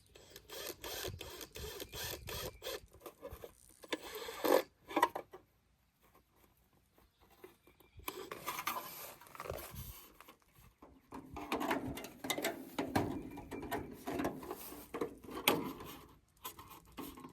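Hand work on a rain gutter piece: rapid scraping, rasping and clicking of the gutter being handled and worked with a hand tool. The sound stops for a few seconds partway through, then resumes.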